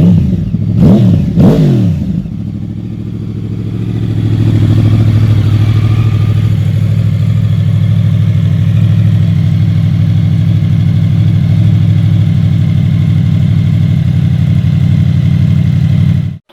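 Yamaha R1 RN22 crossplane inline-four with a full Akrapovic exhaust, blipped twice in the first two seconds. It then settles into a steady idle that gets louder a few seconds in and cuts off suddenly near the end.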